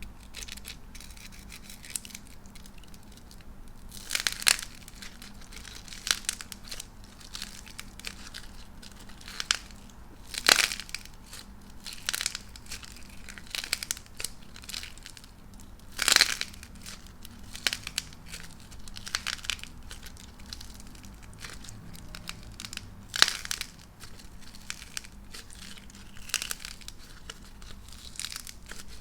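Star-shaped pieces of dried cracking clay being broken and crushed, with continual small crackling and crumbling and a few sharp, louder cracks about every six seconds.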